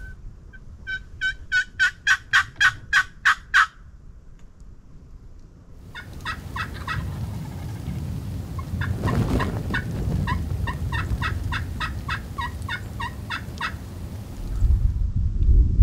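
Turkey yelps: a run of about ten evenly spaced calls growing louder, then after a short pause a longer run of similar calls.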